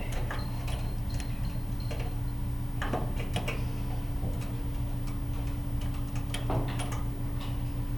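Scattered light clicks and taps of the sediment bowl's glass bowl and metal bail being fitted back onto the fuel-filter valve by hand, over a steady low hum.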